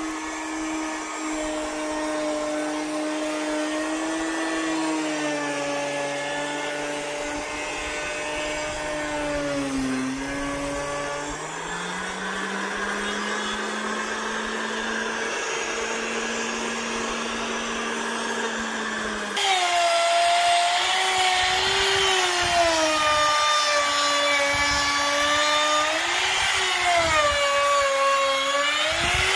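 Makita trim router running and cutting along the edge of a PVC marble sheet, its motor whine dipping and recovering in pitch as the bit takes the load. About two-thirds through, the sound abruptly becomes louder and brighter.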